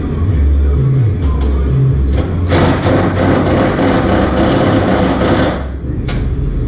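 Background music with a deep, steady bass line. About two and a half seconds in, a power tool working on the cab mount bolts runs in one loud clattering burst of about three seconds, then cuts off sharply.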